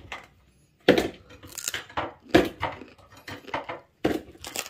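Frozen tilapia fillets dropped one by one into a plastic bowl: a series of six or seven hard knocks and clatters.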